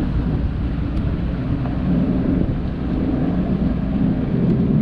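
Boat outboard motors idling: a steady low drone.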